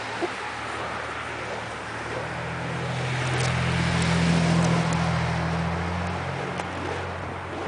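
A car driving past: its engine hum swells to a peak about halfway through and fades away, over a steady rush of noise.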